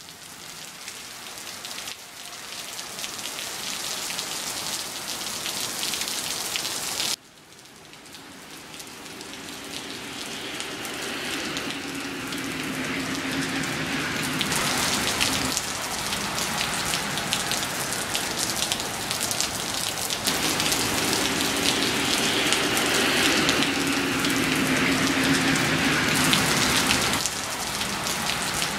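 Heavy rain pouring onto a paved driveway, a dense, steady hiss of falling and splashing drops. It drops off sharply about seven seconds in, then builds back up to full strength.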